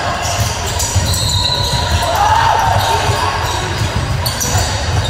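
Basketball bouncing on an indoor court during a game, with a steady background of voices and a couple of short squeaks a little after two seconds in.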